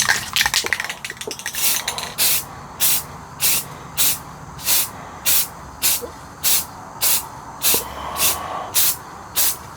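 Aerosol can of flat black spray paint hissing in short, evenly spaced puffs, about one every half second to second, laying a light dusting of paint from far off rather than a full wet coat. A few sharp clicks come just before the puffs begin.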